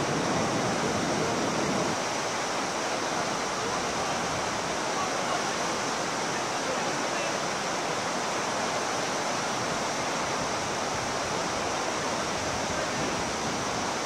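Steady rush of a fast-flowing stream.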